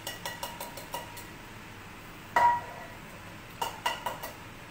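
A utensil clinking against a stainless steel saucepan while the sugar syrup inside is stirred. There is a quick run of ringing taps in the first second, one louder ringing clink about halfway, and a few more taps a little later.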